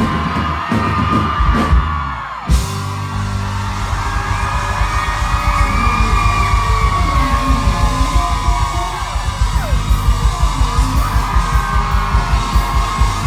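Live rock band playing loudly, with a crowd screaming and cheering over the music. About two and a half seconds in there is a sharp hit, and a fast, steady drum beat runs on after it.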